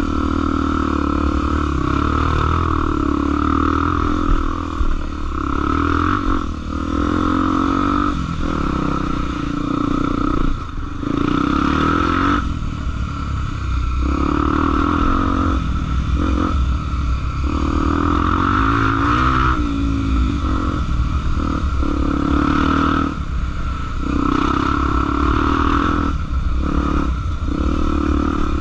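Honda Tornado trail motorcycle's single-cylinder engine running under way, its note rising and falling with the throttle and dropping off briefly several times.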